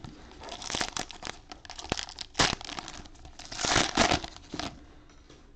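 Clear cellophane wrapper of a trading-card cello pack crinkling and tearing as it is pulled open. The crackling starts about half a second in, is loudest in two bursts around the middle and near the end, and then stops.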